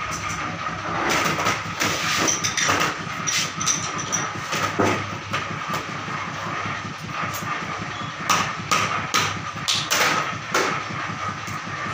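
Irregular metal clinks and knocks of a steel switch mold being opened and handled at a hand-operated screw press, over a steady machine hum; the knocks come thicker and louder in the last few seconds.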